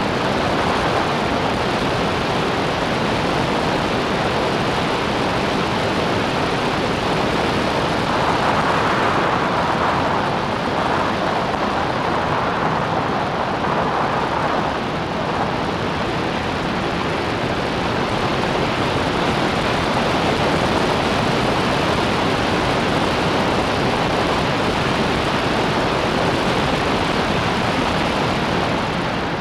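Steady rush of wind over an onboard camera microphone on an open-cockpit Clubmans racing car at speed, with the engine and tyre noise blended in and no clear engine note.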